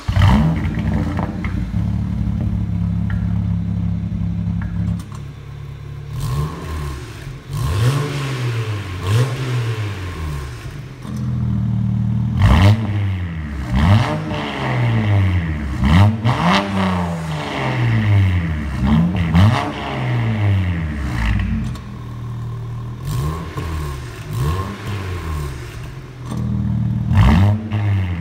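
BMW 335i E92's twin-turbo straight-six running through an aftermarket asg valve-controlled exhaust. It holds a steady fast idle for about five seconds, then is revved again and again, each rev rising and falling back.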